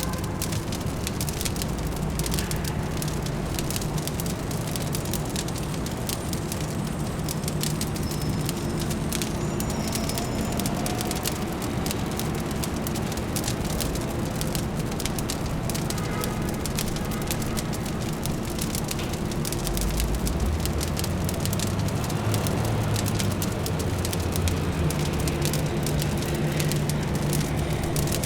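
Fireplace crackling with many small, quick pops over a steady low city hum.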